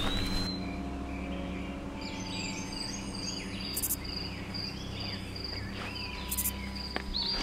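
Woodland ambience: scattered bird chirps and, from about two seconds in, a fast, high pulsing insect trill, over a low steady hum.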